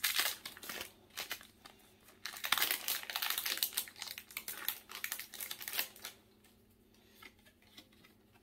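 Foil wrapper of a Pokémon booster pack crinkling and tearing in irregular bursts as it is ripped open, stopping about six seconds in.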